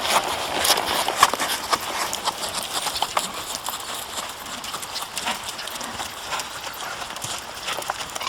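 Hoofbeats of Rocky Mountain Horses being ridden: an uneven run of hoof clops, busiest and loudest in the first couple of seconds.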